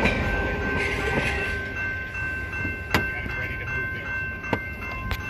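General Signals Type-2 electronic crossing bell ringing steadily at an active railway crossing. The rumble of the last freight car rolling clear dies away in the first second, and a few sharp clicks come near the end.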